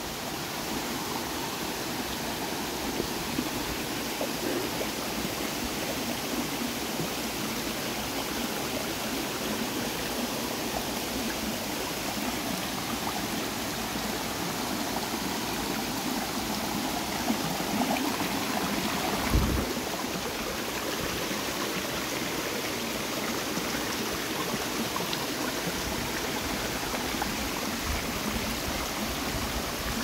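Shallow mountain creek running and trickling over rocks and small cascades in a steady rush, with one brief low thump about two-thirds of the way through.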